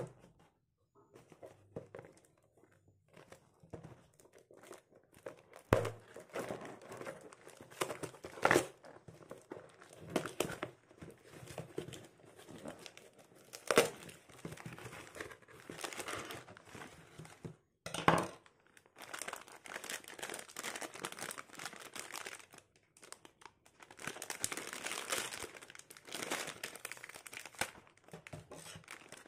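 Tape-wrapped cardboard parcel being cut and torn open with a kitchen knife: scraping, ripping cardboard and tape, with several sharp rips and knocks along the way. Near the end, dense crinkling of a plastic packaging bag.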